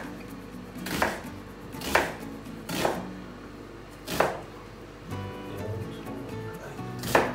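Kitchen knife chopping an onion on a cutting board: single, slow strokes about a second apart, then a gap before a last stroke near the end. Background music plays under it.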